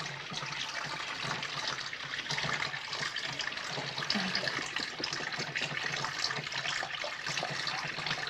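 Water running steadily from a tap into a sink, splashing as hands wash under the stream.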